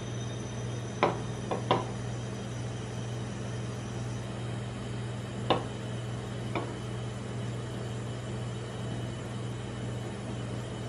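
Aluminium drink can knocking lightly on a metal ice cream roll plate as it is lifted and set down: three knocks close together about a second in, then two more a few seconds later, over a steady low hum.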